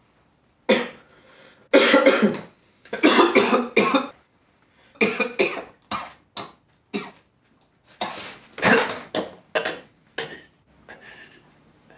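A man coughing and choking in repeated fits, fading near the end.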